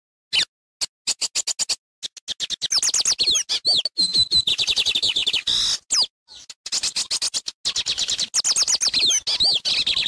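Lined seedeater singing: high-pitched notes that start as a few separate chips and quicken into a dense, rapid run of quick sliding notes, with a short break about six seconds in before the next run.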